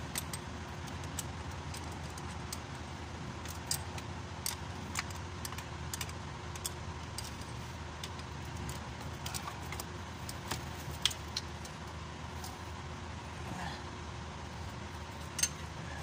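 Sporadic light metallic clicks and clinks of hand tools and battery terminal hardware as a car battery is disconnected and removed, over a steady low background hum.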